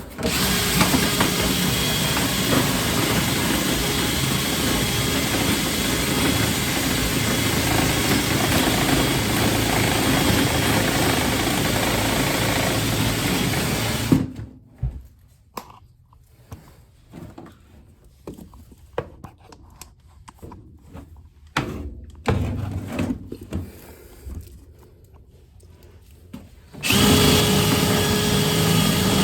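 Power drill spinning a rotary dryer-vent cleaning brush inside metal ductwork. It runs steadily for about half the time, then stops suddenly. Scattered knocks and clunks follow before the drill starts again near the end.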